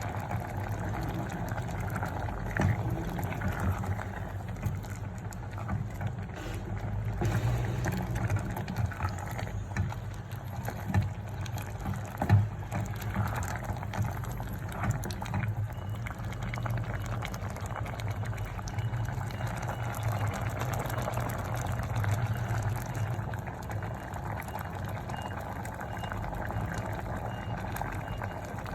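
A pot of food boiling, its liquid bubbling steadily, with a few sharp knocks now and then.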